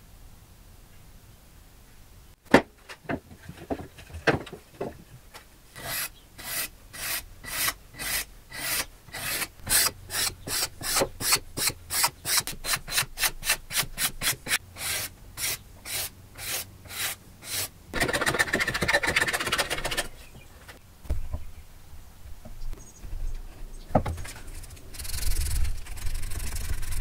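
Hand-sanding walnut with sandpaper. A few sharp knocks come first; the loudest is about two and a half seconds in. Then come even back-and-forth strokes at about three a second, a couple of seconds of faster continuous rubbing, and a short hiss of sanding near the end.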